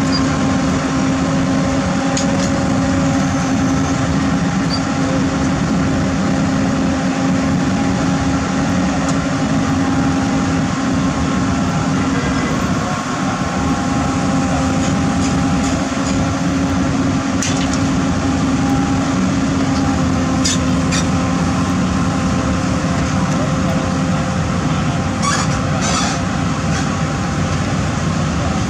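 Heavy construction machine's diesel engine running steadily at a constant pitch, with a few short metallic clicks in the second half.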